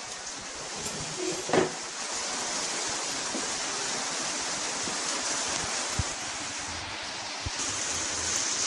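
Steady hiss of heavy rain, with a single knock about one and a half seconds in and two faint clicks later.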